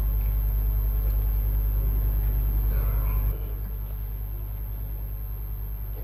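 Steady low hum of room tone through the chamber's microphone feed, with a faint voice briefly near the middle. The hum drops in level a little over three seconds in.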